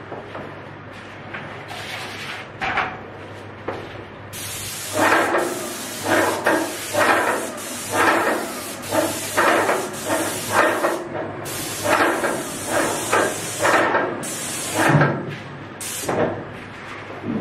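Airless paint sprayer's gun spraying in long trigger passes: a loud steady hiss that starts a few seconds in, breaks off briefly twice, and stops near the end, with a rhythmic pulse about twice a second while it runs.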